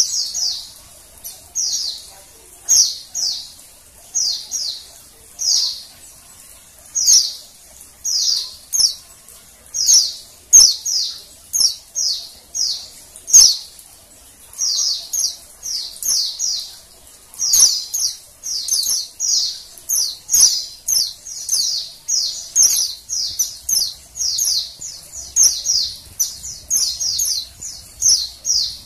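Female white-eye (pleci) calling: short high chirps, each falling in pitch, coming in quick runs of two to four notes and repeated steadily. These are the female's calls that keepers play to prompt male white-eyes to sing.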